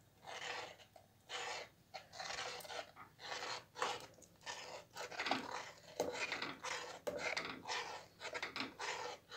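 A metal ladle stirring thick blended lentil soup in a stainless steel pot: a soft swish and scrape with each stroke, about one to two strokes a second, kept up while an egg-yolk liaison is poured in so that it does not curdle.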